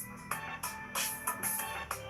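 Background music with a steady beat: drum hits over held instrumental tones.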